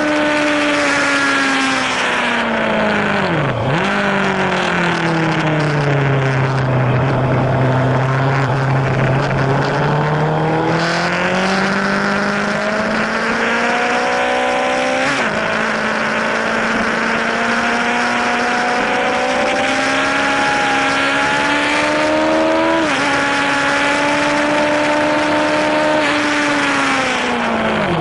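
Yamaha YZF-R1's inline-four engine heard onboard at track speed over wind rush. The engine note sinks low, then climbs steadily with two sudden drops in pitch, about halfway and about three-quarters through, as it shifts up. It falls away near the end as the bike slows.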